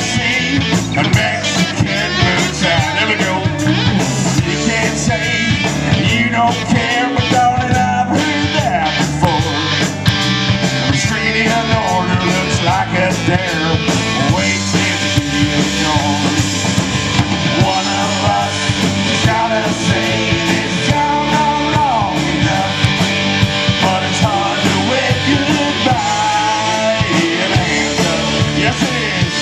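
Live country-rock band playing an instrumental break: a lead electric guitar with bent notes over a steady drum beat and bass.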